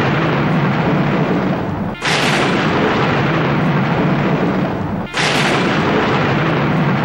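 Sound-effect explosions: loud blasts hit suddenly about two and five seconds in, each dying away slowly in a long hissing rumble over the tail of the one before.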